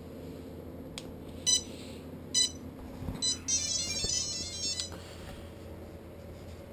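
DJI quadcopter powering up as its flight battery is plugged in: a click about a second in, then two short high beeps and a quick run of rapid high beeps from the motor speed controllers, the start-up tones that show the system has power.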